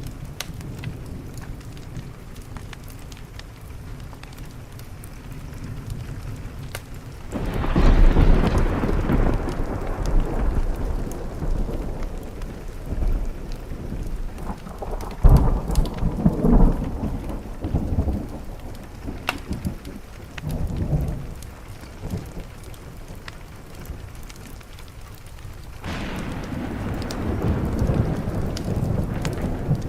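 Steady rain with rolling thunder: a long, deep roll of thunder breaks about a quarter of the way in, peaks with its loudest claps around the middle, then fades, and another roll builds near the end.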